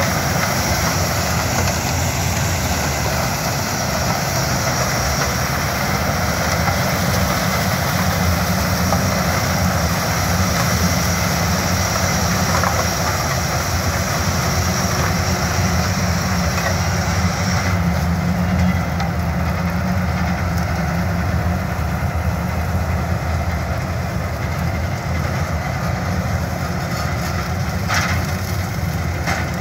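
Yanmar HS2000 sugarcane harvester running steadily under load as it cuts cane and loads it into a truck alongside, a heavy, even drone of engine and machinery. A high whine over it cuts out a little past halfway.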